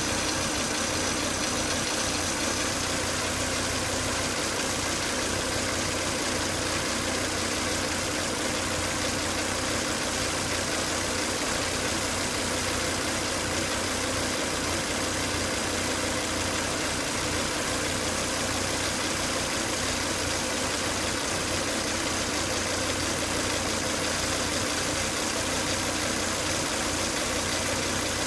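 Volvo S80 2.5T turbocharged five-cylinder engine idling steadily, with a faint high tone over it for the first couple of seconds.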